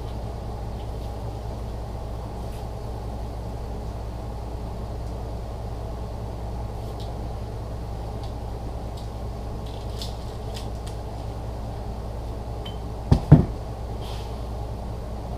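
A steady low hum in the background, with faint light ticks and a pair of sharp metallic knocks about thirteen seconds in as transfer-case parts are handled and set down.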